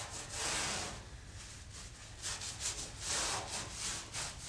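Microfiber cloth wiped over a painted truck body panel in repeated back-and-forth strokes, a string of short swishes, rubbing off dirt left behind where the body side molding was removed.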